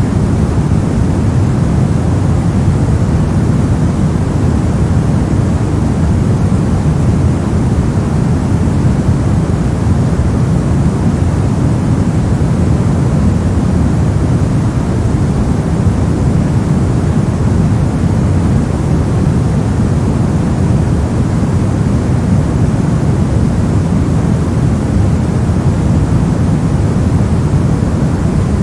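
Continuous generated white noise with no changes, its energy weighted toward the low end so it sounds deep rather than hissy.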